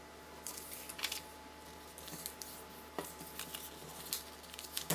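A sheet of paper being folded and creased by hand on a table: quiet rustling, with a few short, sharp crackles of the paper scattered through, over a faint steady low hum.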